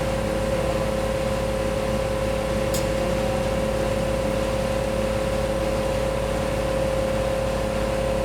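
A steady machine hum built on one constant mid-pitched tone, with a single short high tick about three seconds in.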